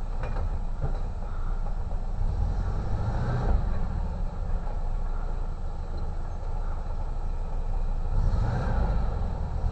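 1962 VW split-window bus's air-cooled flat-four engine working as the bus climbs over rocks, revving up twice: about three seconds in and again near the end.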